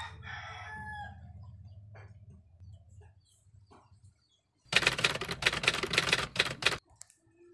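A rooster's crow trails off in the first second over a low hum. About five seconds in comes a loud two-second run of rapid keyboard typing clicks.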